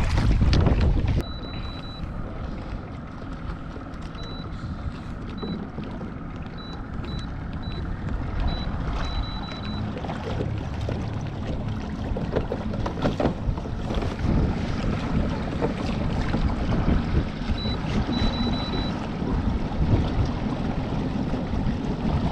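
Kayak moving out on a lake: wind buffeting the microphone, loudest in the first second, over water lapping against the hull. A faint high thin whine comes and goes during the first half.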